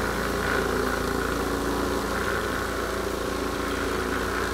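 Vibratory brass case tumbler running with its lid off, a steady motor hum and buzz as the cleaning media and .44 Magnum casings churn in the bowl.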